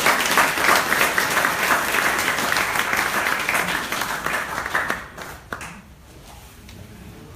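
Audience applauding; the clapping fades out about five seconds in.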